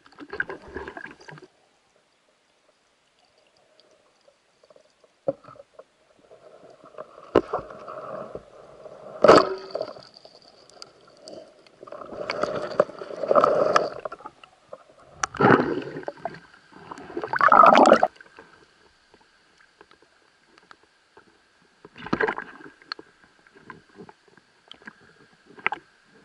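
Water sloshing and gurgling around an underwater camera as a spearfisherman swims in shallow water, in irregular splashy bursts of a second or more with quieter gaps between.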